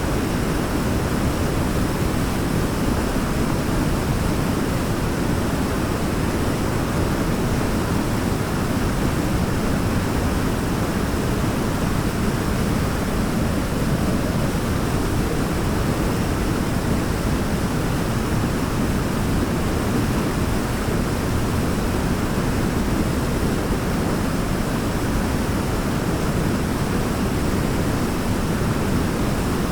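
Waterfall: a steady, unbroken rush of falling water, deep and full, with no breaks or changes.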